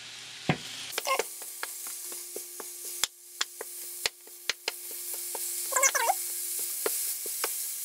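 Raw ground beef sizzling in a hot frying pan while a wooden spatula chops and breaks it up, with irregular taps and scrapes of the spatula against the pan.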